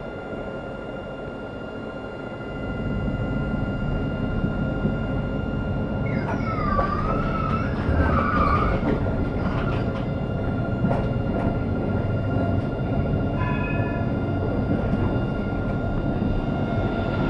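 Street tram running on its rails, heard from inside the driver's cab: a steady low rumble that gets louder about two and a half seconds in as it picks up speed, under a steady high whine. A wavering high tone rises and falls for about three seconds near the middle.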